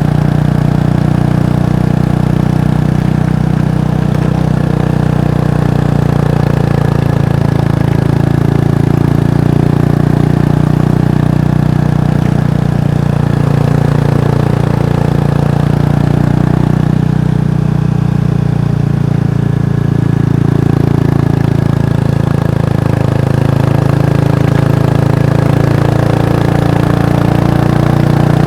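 Kawasaki Estrella's single-cylinder four-stroke engine running through its exhaust, a steady loud drone whose pitch drifts gently up and down as the engine speed varies.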